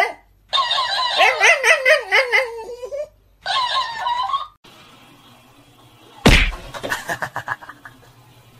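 Shiba Inu whining and howling in high, wavering tones, in two bursts, the second shorter and higher. Then a loud thump about six seconds in, followed by a quick rattle of knocks.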